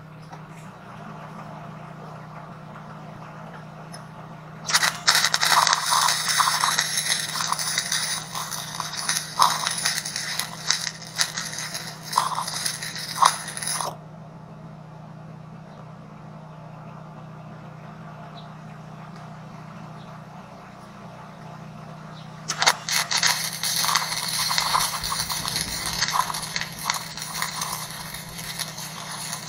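Arc welding steel channel legs onto a steel tank: the arc crackles and sizzles with sharp pops in two runs, from about five seconds in until about fourteen, and again from about twenty-three seconds on, over a steady low hum.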